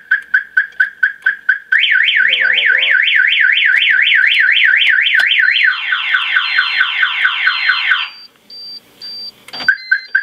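Aftermarket car alarm siren going off, tripped by turning the ignition key with the alarm armed. It plays a fast run of chirps, then a rapid up-and-down warble, then quick falling sweeps, and cuts off about eight seconds in. Faint high beeps follow, with a short chirp from the siren near the end.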